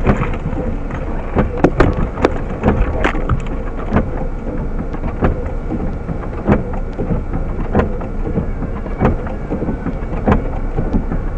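Steady low rumble of a car on the move, with frequent irregular sharp knocks and rattles.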